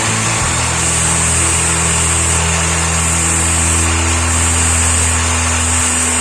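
Angle grinder fitted with a homemade belt-grinder attachment running steadily, under background music.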